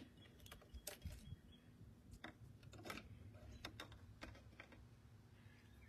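Faint, irregular clicks and taps of plastic action figures being handled and set out.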